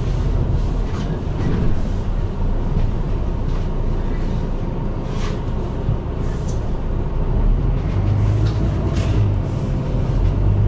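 Inside a London bus: steady engine and road rumble, with a low engine hum that grows stronger near the end and occasional short rattles and knocks from the bodywork.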